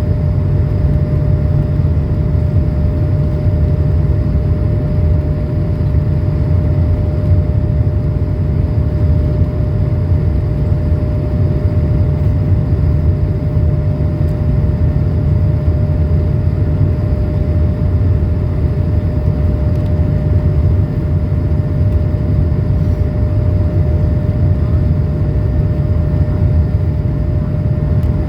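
Cabin noise of an Airbus A220-300 in its initial climb after takeoff: a loud, steady rumble from its Pratt & Whitney PW1524G-3 geared turbofans at climb power, with a steady hum-like tone above it.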